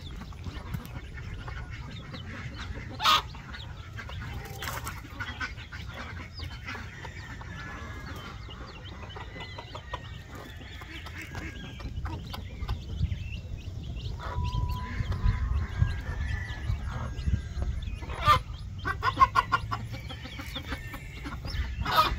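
A Silver Phoenix game cross hen clucking softly and her chicks peeping while they peck at scattered corn, with frequent short calls and small pecking clicks over a low rumble. Two brief sharp sounds stand out, a few seconds in and near the end.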